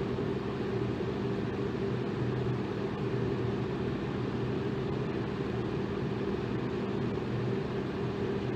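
Electric fan running steadily: an even rush of air with a low, constant motor hum.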